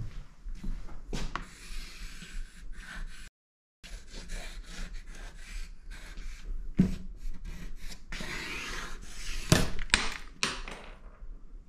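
Charcoal stick scratching and rubbing across paper on a drawing board in irregular strokes, with a couple of sharper knocks against the board.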